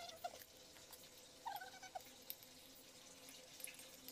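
Near silence while eating: faint clinks of metal spoons on plates, and a few faint short chirps.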